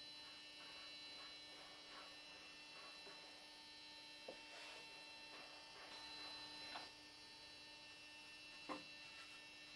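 Near silence: a steady electrical hum, with a few faint knocks of wooden parts being handled, the loudest about nine seconds in.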